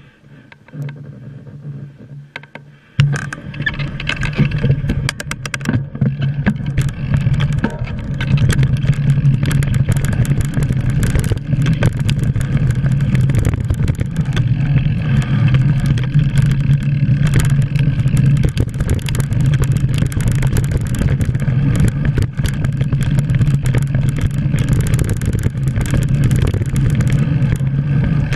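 Mountain bike riding down a dirt forest trail: a steady rumble of tyres and rushing wind with frequent clicks and rattles from the bike over the rough ground. Quieter for about the first three seconds as the bike sets off, then loud.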